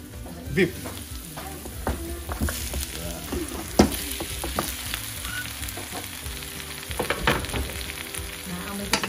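Sliced roast beef sizzling as it drops into a hot stainless steel wok of onions and garlic frying in olive oil, with a steady frying hiss and a few sharp knocks of the wooden board and meat against the pan.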